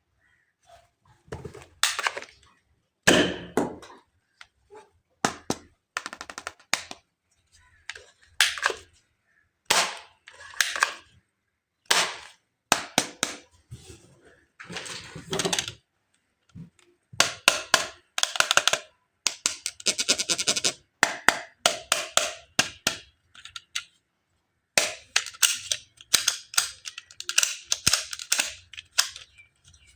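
Sharp plastic clicks and snaps from a toy being handled and worked, coming in irregular bursts, some as quick runs of clicks, with short silent gaps between.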